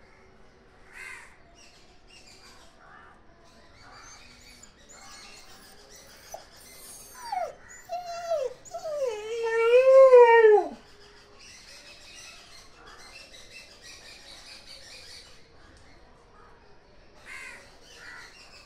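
An Indian native dog, left tied up alone, howling: a few short rising yelps, then one long howl of about two seconds that drops away at the end, about halfway through.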